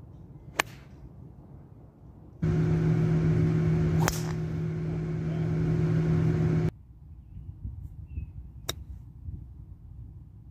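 Golf club striking the ball twice with a sharp crack: a shot off the tee about half a second in and another shot near the end. Between them a loud steady hum with a low tone runs for about four seconds, starting and stopping abruptly.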